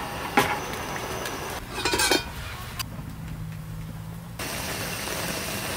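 Close-up camp-cooking sounds cut together: a sharp metal clink about half a second in and a clatter of metal cookware around two seconds in, then a steady hiss near the end.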